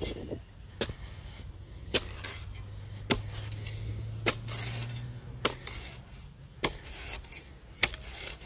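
Small garden spade chopping into soil, seven sharp strikes at an even pace of about one a second, with some scraping between them.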